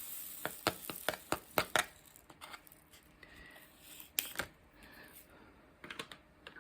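Light, irregular clicks and taps of a pen pressing diamond-painting drills onto a canvas. They come quickly for the first two seconds, then sparsely, with a short cluster again near the end.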